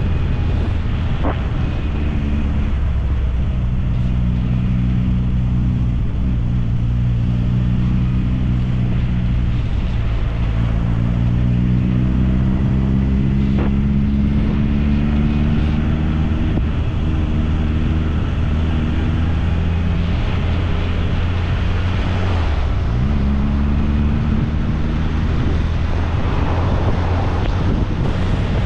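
1964 MG Midget's 1098 cc A-series four-cylinder engine running under way. The revs climb steadily through the middle, then briefly drop and climb again near the end.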